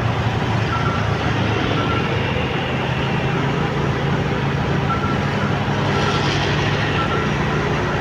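Motorcycle riding at a steady pace through city traffic, with engine hum and a steady rush of wind and road noise. A short high beep repeats roughly once a second, with a few gaps.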